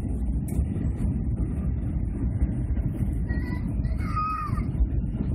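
Steady low roar of engine and airflow noise inside the cabin of an Airbus A321 airliner on its descent. A small child's brief wavering cry rises over it about three to four seconds in.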